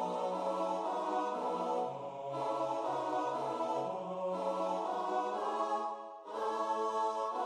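Four-part barbershop harmony in tenor and bass range, holding sustained chords that change every couple of seconds. A brief break comes about six seconds in, before the next chord.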